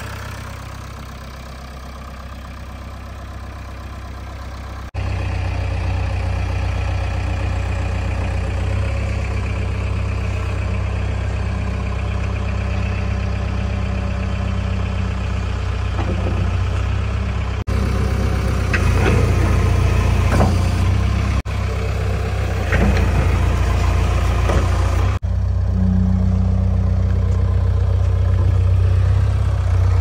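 JCB 3DX backhoe loader's four-cylinder diesel engine idling with a steady low rumble, louder about five seconds in. Some light clatter comes in past the middle.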